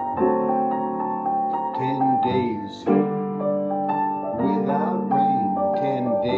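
Yamaha piano playing a slow melody over held chords, with a new chord struck every second or two.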